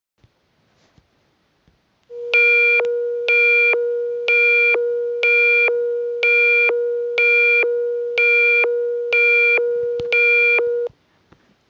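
Electronic emergency alert tone: a steady low hum-like tone with a buzzy beep pulsing over it once a second, nine times, then cutting off suddenly.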